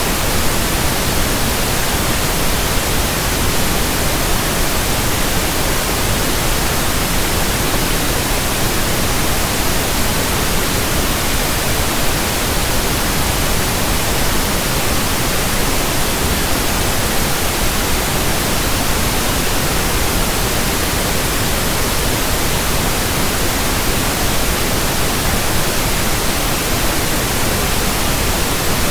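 Steady, unchanging pink noise: an even hiss with no tone, rhythm or breaks.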